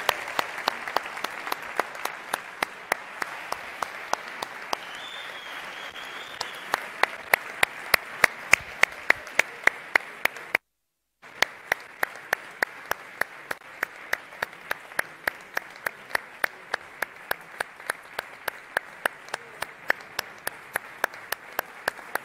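Theatre audience applauding, clapping together in a steady rhythm of about three claps a second. The sound cuts out completely for a moment about halfway through.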